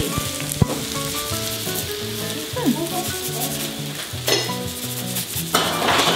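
A pan of tomato base sizzling steadily on the stove, with light background music and a few sharp clicks.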